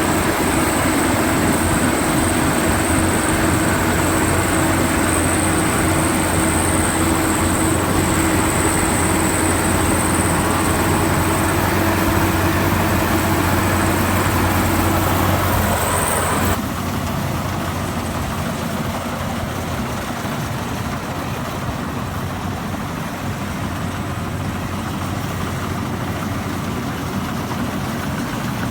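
Combine harvester running steadily while harvesting rice, its engine and threshing machinery making a continuous mechanical drone with a high whine. About two-thirds of the way through, the whine and hum cut off suddenly and the machine noise carries on a little quieter.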